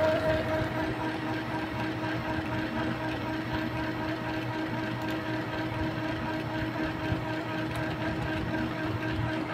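Epson L3150 inkjet printer's motor running with a steady, even whir.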